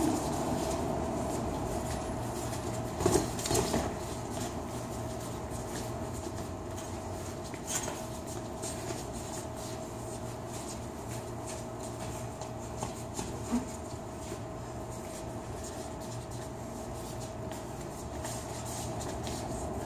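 A steady machine hum with a constant tone, with a few short thuds and slaps of boxing gloves landing during sparring, the clearest a pair about three to four seconds in and a couple more later.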